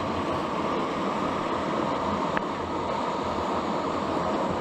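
River water rushing over rocks, a steady full noise, with a single faint click about halfway through.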